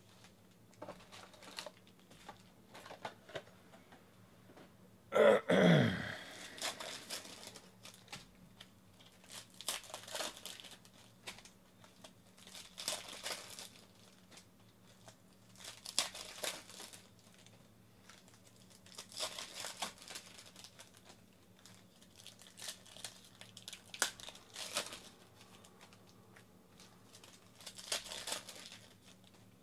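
Trading-card pack wrappers being torn open and crinkled, with cards handled, in short crackly bursts every few seconds. About five seconds in there is one louder, brief sound that falls in pitch.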